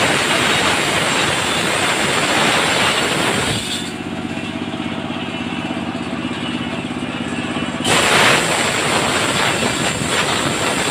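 Large circular sawmill blade ripping a sengon plank lengthwise. About three and a half seconds in the cut ends and only the steady hum of the saw's drive is heard while the blade spins free. Near eight seconds the blade bites into the wood again and the loud cutting noise returns.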